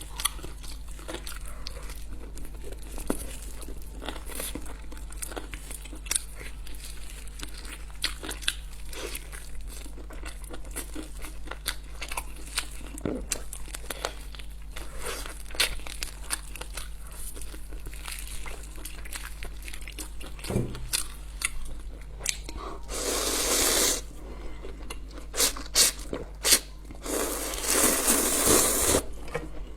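Close-up eating sounds: a person chewing and biting into a chicken leg, with many small crunches and wet clicks. Near the end come two louder rushing bursts of about a second each. A steady low hum runs underneath.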